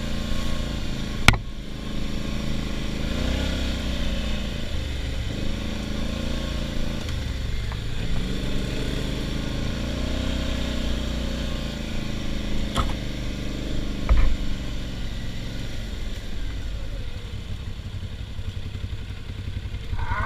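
ATV engine revving up and down in waves while riding through mud, easing off near the end. A sharp knock comes about a second in, another later on, and a thump shortly after.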